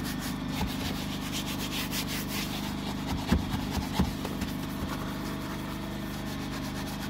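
Detailing brush scrubbing foaming cleaner into a car's door panel, a rapid rasping of bristle strokes that is strongest in the first couple of seconds. Two sharp knocks come about three and four seconds in, over a steady low hum.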